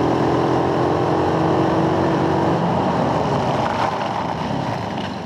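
Off-road go-kart's small engine running under load as the kart drives along, its note holding a steady pitch rather than climbing. The engine note fades a little about halfway through and eases slightly near the end.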